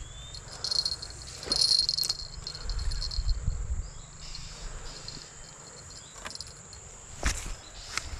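Insects droning steadily at a high pitch, with a louder burst of high trilling for about two seconds near the start. A few light knocks come through, one near the end.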